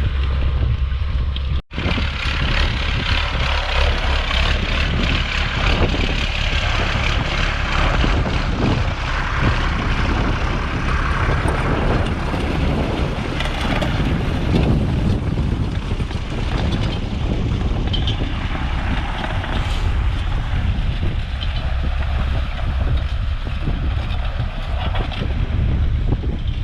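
Vintage tractor engines running steadily, with heavy wind rumble on the microphone. The sound drops out for an instant under two seconds in.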